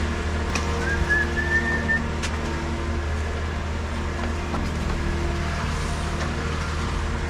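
Concrete pump truck's diesel engine running at a steady drone. A brief high whistle-like squeak comes about a second in, and a couple of sharp clicks are heard.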